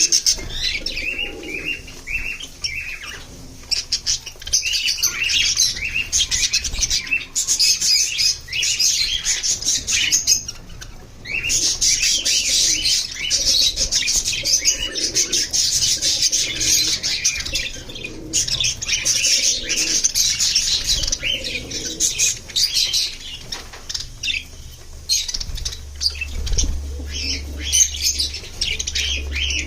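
Budgies chirping and warbling in a rapid, near-continuous chatter of short high chirps, with brief lulls a few seconds in, about a third of the way through, and near the end.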